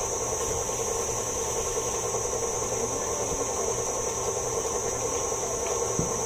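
KitchenAid Artisan stand mixer running steadily, mixing cookie dough, its motor giving an even hum.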